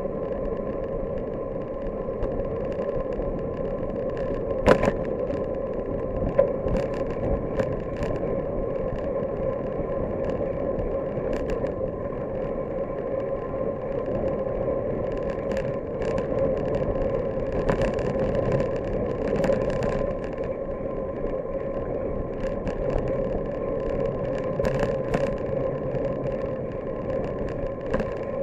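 Steady wind and road rumble picked up by a camera mounted on a moving bicycle, with a constant hum running under it. A few sharp knocks from bumps in the road, the loudest about five seconds in and again a second and a half later.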